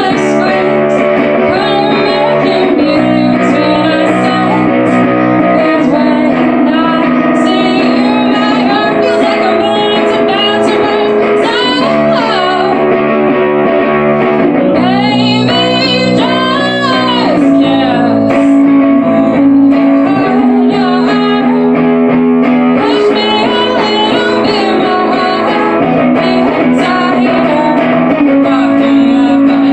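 Live emo/indie-rock band performance: guitar chords under a woman singing.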